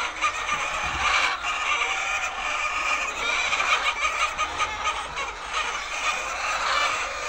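A flock of laying hens calling, many overlapping calls blending into a constant chatter, with a few faint clicks.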